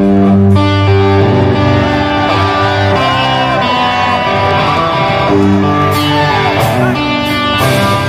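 Live rock band music: an electric guitar lead line with bending notes over bass and drums, with a few cymbal hits in the second half.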